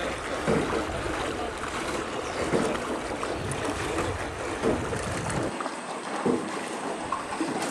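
Rowboat on calm river water: water sloshing at the oar strokes about once a second, over wind rumbling on the microphone that drops away about two thirds of the way through.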